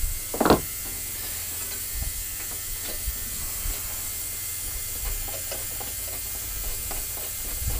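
Socket wrench ratcheting in small clicks as a new spark plug is tightened into a lawnmower engine. Underneath is the steady hum and hiss of an ultrasonic parts cleaner, and a brief louder noise comes about half a second in.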